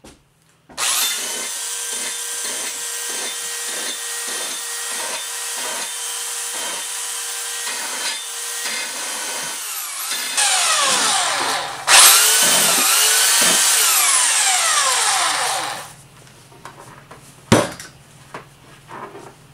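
Handheld belt sander running against the steel head of an old felling axe, grinding the metal. For the first several seconds it is pressed in and eased off about twice a second; it keeps going until it winds down and stops. A single sharp knock comes near the end.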